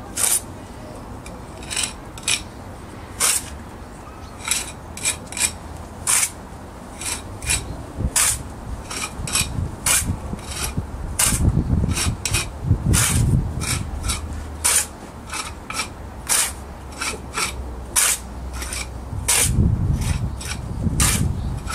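A steel brick jointer and trowel scraping along fresh mortar joints in new brickwork, in short strokes about one or two a second. Longer, heavier rubbing passes come around the middle and near the end.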